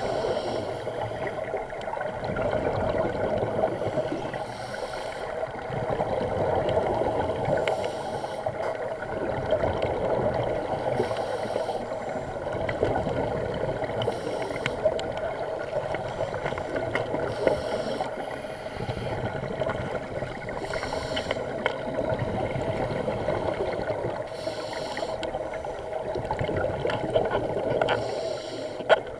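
Underwater sound inside an action camera's waterproof housing: a steady muffled hum, with the bubbling hiss of a scuba diver's regulator exhalations every few seconds. A single sharp click near the end.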